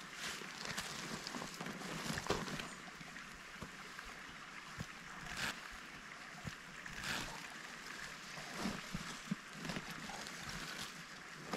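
Steady rush of a forest stream running, with scattered soft scrapes and rustles of soil and fine roots being dug out by hand.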